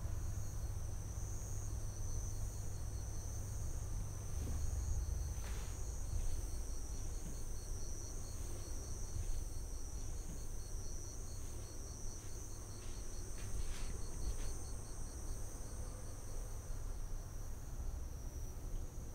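Insects chirping: a steady, slightly wavering high trill with a second high note pulsing quickly and evenly, over a low steady hum and a few faint knocks.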